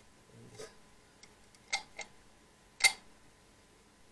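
Clear plastic syringe clicking and tapping against a metal quart paint can as it is worked in the clear coat: a few sharp clicks, the loudest near three seconds in.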